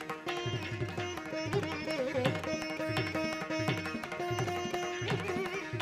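Background instrumental music in Indian classical style: a plucked-string melody with held, wavering notes over a steady tabla beat.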